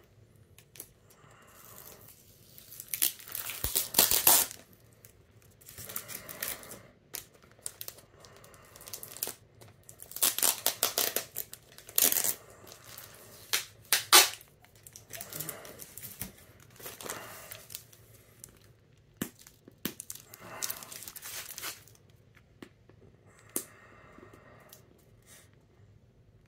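Packing tape being picked at and peeled off a comic book's wrapping, in irregular bursts of tearing and crinkling with short pauses between.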